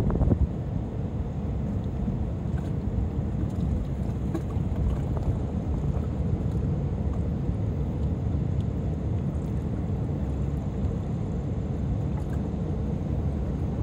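Wind buffeting a phone's microphone outdoors: a steady low rumble, a little louder at the very start, with a few faint ticks.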